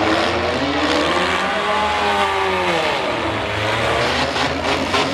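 Engines of several small demolition derby cars revving, the pitch rising and falling as the cars accelerate and back off. A few sharp knocks of impacts come near the end.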